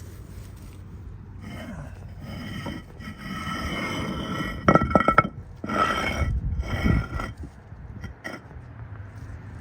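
Metal scraping and clinking with a ringing tone, in repeated strokes that get louder toward the middle, where several sharp hits are the loudest part.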